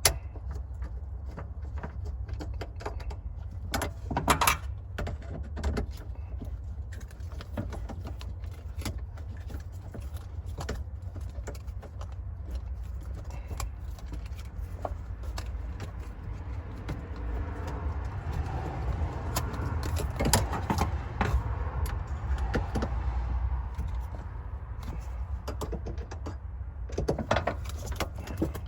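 Scattered clicks, knocks and rattles of hand work on a car, as a fuel pump driver module is unbolted and replaced, over a steady low rumble.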